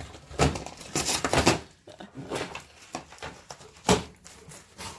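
A husky and a malamute tearing and chewing a cardboard box: irregular ripping and crunching of cardboard, busiest in the first second and a half, with one sharp snap about four seconds in.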